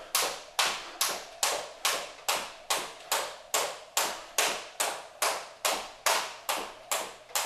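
Jump rope skipping on a hardwood floor: a sharp slap with each turn of the rope, in a steady beat of about two and a half a second.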